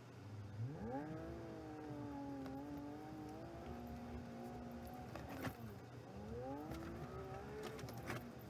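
A vehicle engine accelerating: it rises from idle, holds, drops in pitch as if shifting, then climbs and drops again, with a couple of sharp knocks.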